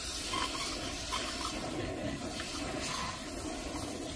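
Flexzilla air blow gun blowing compressed air through a pair of aftermarket catalytic converters, a steady hiss of air rushing through them to clear out the honeycomb.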